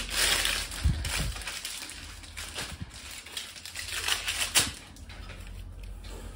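Cardboard boxes and packaging being handled and torn open: irregular rustling, scraping and small clicks, with a sharp knock a little past the middle.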